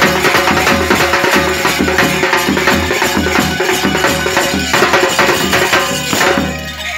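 Dhamail folk-dance music: a fast, even rhythm of clapping and percussion over held tones. The rhythm breaks off about six seconds in.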